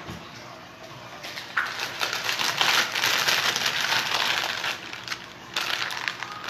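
Clear plastic piping bag crinkling as it is handled, a dense rustle that starts about one and a half seconds in and drops off near the end.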